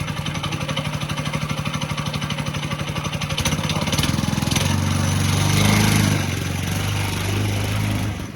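Homemade track sled's 5-horsepower small engine running with a rapid, even putter. About halfway through its note drops lower and grows louder, then eases off slightly near the end.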